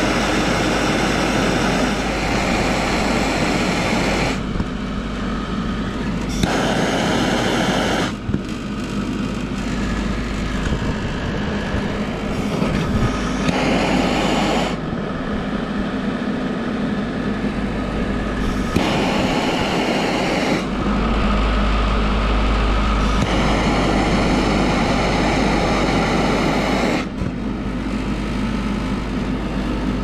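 Gas soldering torch burning with a steady rushing hiss while a copper pipe joint is heated and soldered. The hiss thins out and comes back several times as the flame is worked on and off the joint.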